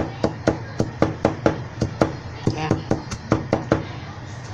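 Cleaver mincing ginger on a wooden cutting board: quick, even knocks about four to five a second, pausing briefly a little past halfway and again near the end.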